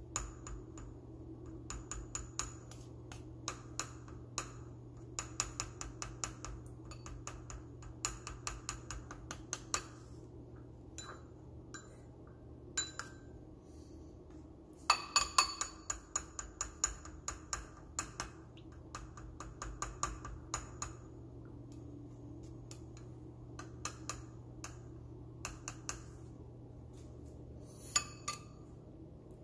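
Rapid clinks and taps of a utensil against a ceramic bowl, coming in quick bursts with short pauses, loudest about halfway through, over a steady low hum.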